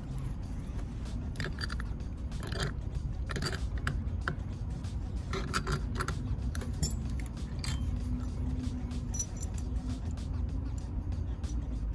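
Scattered small metallic clicks and clinks as the water pump's aluminium housing and hand tools, a socket and a wrench, are handled, over a steady low hum.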